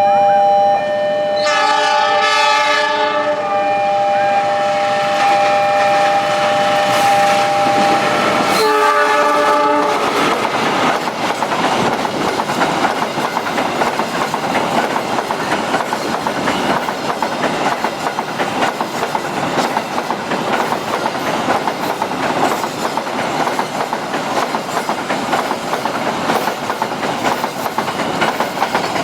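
A train sounds its horn twice, once about a second and a half in and again near nine seconds, over the steady two-tone warning alarm of a railway level crossing, which stops around the second blast. From about ten seconds the train runs past close by, its wheels clattering over the rail joints.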